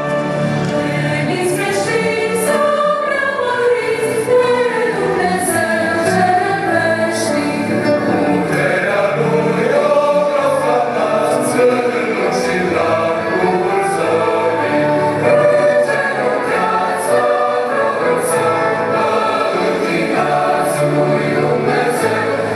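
Choir singing over an instrumental accompaniment in a Christian worship song, with regular cymbal strokes.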